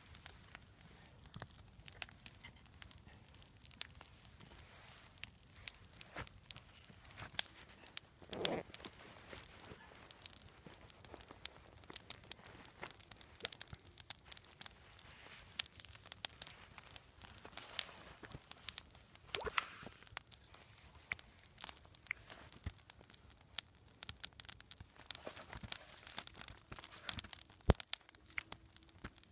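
Small open fire of dry twigs and branches crackling, with frequent sharp pops and snaps.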